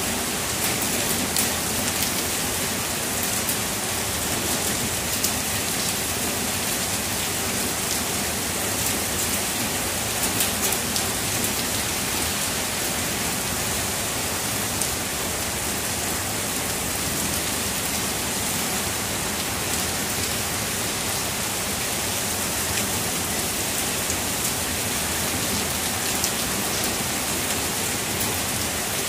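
Heavy rain falling steadily, an even hiss with sharper drop hits scattered through it.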